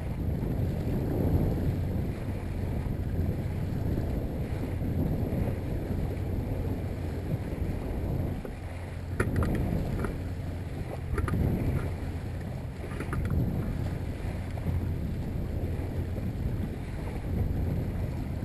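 Yamaha 70 hp outboard motor running at a slow trolling speed of about 1,200 RPM, a steady low rumble mixed with wind on the microphone and water washing past the hull. A few light clicks come around the middle.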